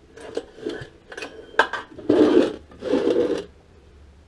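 Metal hand tools clinking and rattling against a Predator 212 engine as its recoil starter is being unbolted: a few sharp clicks with a short metallic ring, then two longer rattling stretches about two and three seconds in.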